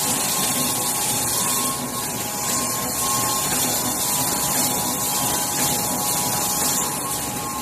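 Automatic multi-colour tube UV screen printing machine running: a steady, even machine noise with a faint steady hum, no separate knocks or strokes standing out.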